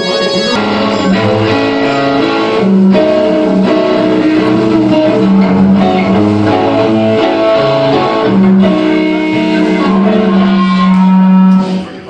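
Amplified electric guitars playing a slow line of held, distorted-sounding notes over a bass line, with little drumming. It cuts off just before the end.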